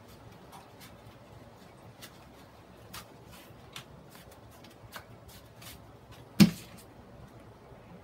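Scattered light clicks and rustles of hands handling things on a work table, with one loud knock about six and a half seconds in.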